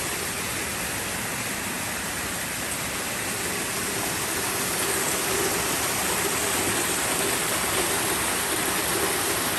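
Steady rush of storm rainwater pouring and flowing in typhoon rain, a continuous even noise with no breaks.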